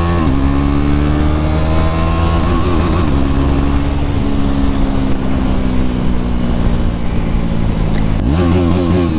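KTM Duke 390's single-cylinder engine pulling the motorcycle along the road, with wind rush. Its pitch climbs gently over the first few seconds and wavers about three seconds in. It then holds fairly steady, and near the end rises and falls again quickly.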